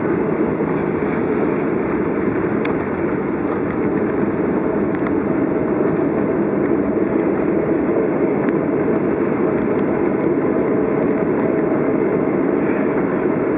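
Steady cabin noise of an airliner rolling down the runway after touchdown: jet engines and the roll of the wheels on the runway, an even, loud rumble with no change through the stretch.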